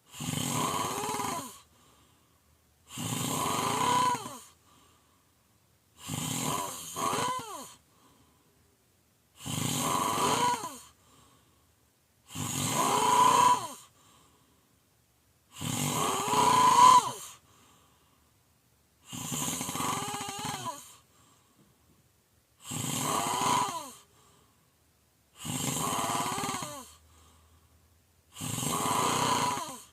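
A person snoring loudly: about ten snores, each one to two seconds long, coming roughly every three seconds with quiet between them, each with a pitch that wavers and slides during the breath.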